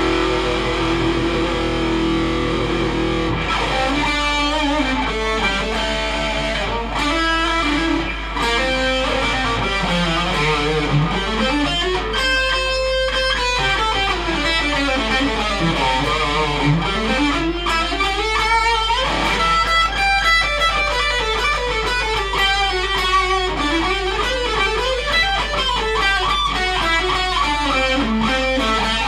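Ibanez electric guitar played solo, with notes whose pitch repeatedly swoops down and back up, bent and dipped with the tremolo bar, and a bright high squeal about twelve seconds in.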